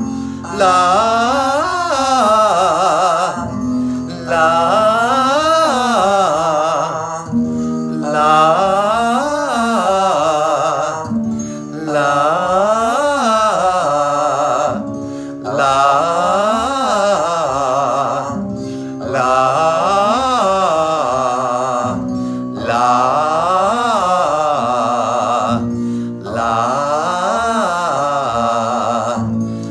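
A man's voice singing 'lah' vocal-exercise triads, each pattern running up and back down, about eight times with a short breath between each, over an instrumental accompaniment holding steady notes.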